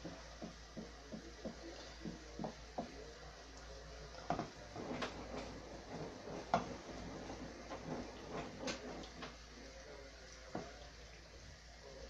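Wooden spoon stirring broad beans and pancetta in a frying pan, giving a run of soft knocks and scrapes against the pan, busiest around the middle.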